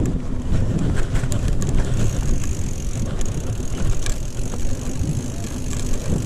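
Commencal Meta hardtail mountain bike riding fast down a dirt trail: tyres rumbling over the packed dirt and the frame rattling with sharp clicks, under steady wind buffeting on the microphone. A thin high whine runs from about two seconds in.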